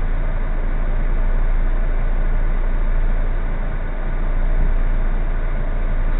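Steady low hum of a car engine idling, heard from inside the cabin through a dashcam's microphone.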